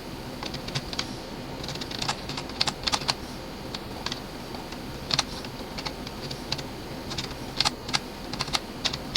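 Keys tapped on a computer keyboard: irregular clicks, some in quick runs of several keystrokes with short pauses between.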